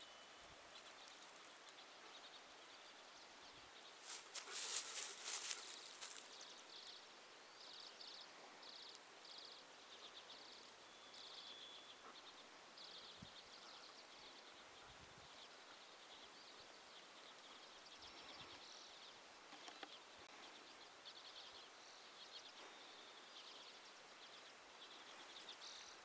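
Near silence outdoors, with faint, short, high chirps repeating now and then from small birds calling. A brief rustling burst comes about four seconds in.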